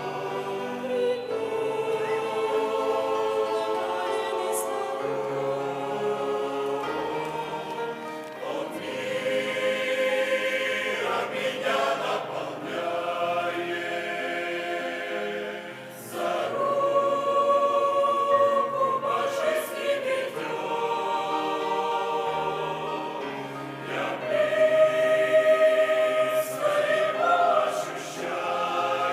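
A church choir singing a slow hymn in several voice parts, with long held chords; it swells loudest a little before the end.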